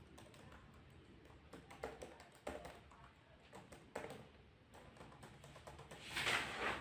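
Typing on a laptop keyboard: faint, irregular key taps, with a louder brief noise about six seconds in.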